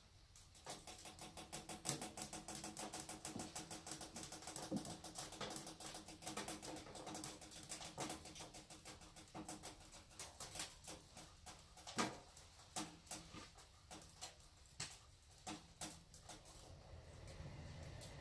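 Bulsajo pellet stove burning on its sixth heat setting: a rapid run of crackles and ticks from the burn pot, dense at first and thinning out near the end, over a faint steady hum.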